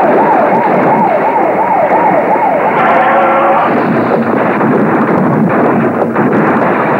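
A siren wailing up and down about twice a second over loud crash and engine noise, giving way about three seconds in to a brief steady horn-like tone, then dense noise with scattered knocks from cars crashing and tumbling.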